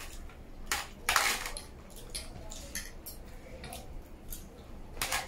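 Spoons and forks clinking and scraping against food trays in short, irregular clicks, the loudest a little over a second in.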